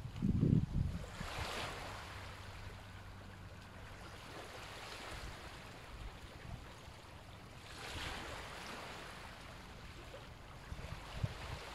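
Slow ujjayi breaths, a hissing, ocean-like sound made by narrowing the back of the throat. They swell and fade every few seconds. A low rumble in the first second.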